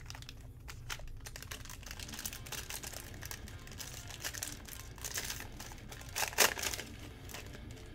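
Foil wrapper of a football trading-card pack crinkling and tearing as it is peeled open by hand, with one louder crackle about six and a half seconds in.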